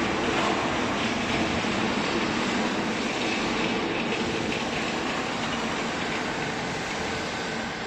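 A 200 kg hydraulic wool baler running, with a steady machine hum from its motor and hydraulic pump over a constant mechanical rush.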